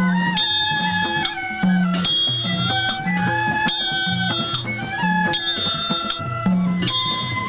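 Several bamboo transverse flutes playing a folk melody together, with cymbal strokes keeping a steady beat.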